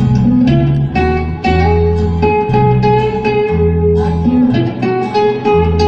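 Instrumental break of a slow country ballad played live: acoustic guitar, with long held melody notes over a slow, steady bass line.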